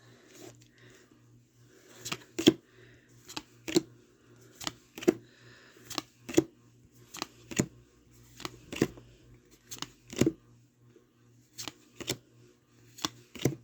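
Pokémon trading cards being flipped through one at a time. There is a short, sharp flick or click for each card, about one or two a second, starting about two seconds in.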